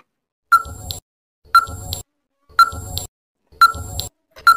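Countdown timer sound effect ticking once a second: five short beep-like ticks, each with a low thud underneath, counting down the time to answer a quiz question.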